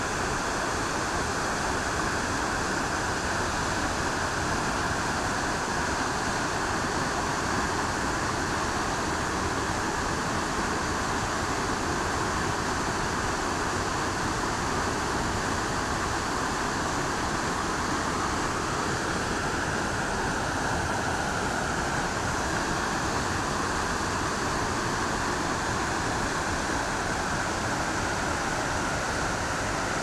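Small river waterfall: whitewater pouring steadily over rocky steps in a continuous, even rush.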